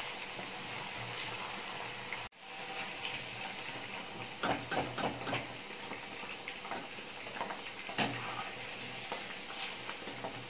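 Marinated chicken pieces deep-frying in hot oil, a steady sizzle that cuts out briefly about two seconds in. Over it come sharp metal clinks and scrapes as the pieces are scooped out with a wire strainer, the loudest knock about eight seconds in.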